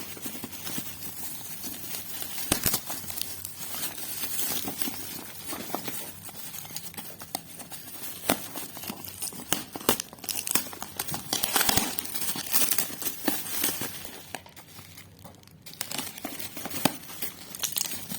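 Packaging being unwrapped by hand: steady crinkling and rustling with some tearing, and scattered sharp clicks and taps. There is a short lull about fifteen seconds in.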